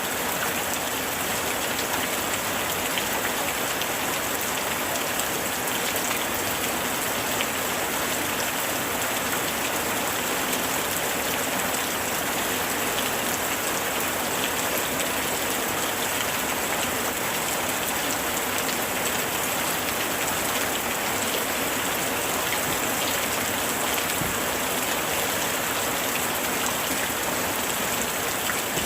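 Heavy rain falling steadily: a dense, even hiss with faint scattered drop ticks throughout.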